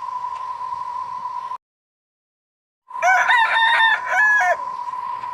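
A steady high beep tone cuts off about a second and a half in. After a moment of silence the tone comes back with a rooster crowing over it, one cock-a-doodle-doo lasting about a second and a half, loud and clear like a sound effect.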